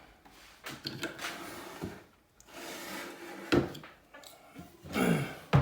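Rubbing and scraping with a few light knocks as a phone's small parts and tools are handled on a work surface, with a brief low voiced hum with falling pitch near the end.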